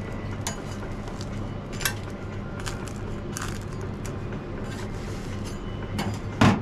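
Metal spatula scraping and tapping on a round steel griddle while a rolled flatbread is pressed and turned: a few light clicks scattered through, then one sharp, loud clack near the end, over a steady low hum.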